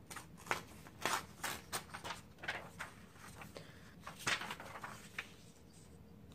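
Paper rustling and crackling in short irregular bursts as a page of an old paperback book is handled and laid flat on a board, the loudest crackle about four seconds in.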